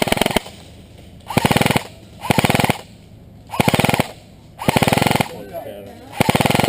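Airsoft electric gun (AEG) firing six short full-auto bursts, about half a second each, its gearbox cycling in a rapid rattle of evenly spaced shots. It is running on a 9.6-volt battery, which the shooter finds gives a slow rate of fire.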